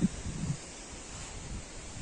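Wind blowing over the microphone in gusts, with leaves rustling in the trees.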